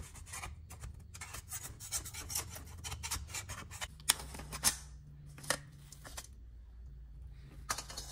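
Metal springform cake pans being handled on a countertop: a run of scrapes and small clicks, then the pan's side latch snapping open with a sharp click about four seconds in, followed by a few more knocks as the ring comes away from the baked brick.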